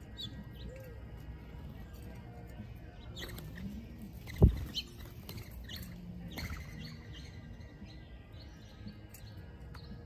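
Small wild birds chirping in short, scattered calls, with a single loud thump about four and a half seconds in.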